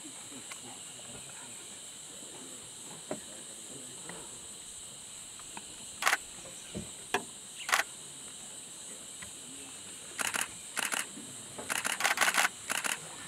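Camera shutters clicking: a few single shots from about six seconds in, then rapid bursts near the end. Under them runs a steady high-pitched drone of insects.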